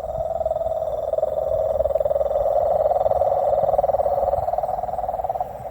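Frogs calling in a continuous, fast-pulsed trill that holds steady for the whole stretch and dips briefly near the end.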